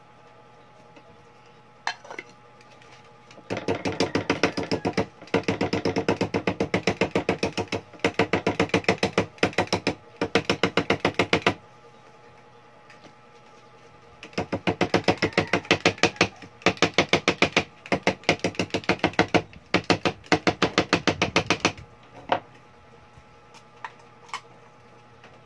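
Adhesive tape being pulled off its roll in repeated pulls of one to two seconds each, a fast rasping crackle of about ten ticks a second. The pulls come in two runs with a pause of a couple of seconds between them.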